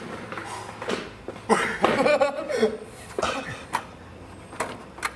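A man coughing, mixed with voices and laughter, and a few sharp clicks near the end.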